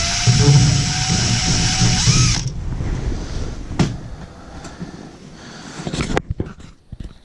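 Hammer drill running, boring out the plugged port of a furnace collector box, a blockage that was causing pressure switch errors. It stops abruptly about two and a half seconds in, followed by quieter handling noise with a few clicks and knocks.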